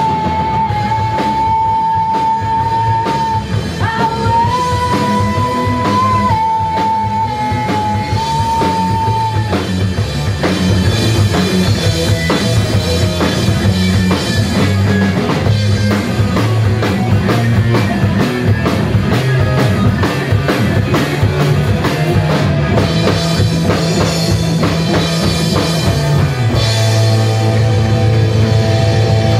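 Live rock band playing loud: distorted electric guitar, bass guitar and a drum kit, with singing. A long high note is held over the first nine seconds or so, stepping up and back down once, before the band drives on with dense drumming.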